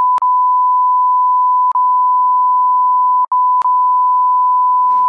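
Steady 1 kHz sine-wave test tone, the reference tone that goes with broadcast color bars. It is broken by a few short clicking dropouts, two of them close together past the middle, and cuts off suddenly at the end.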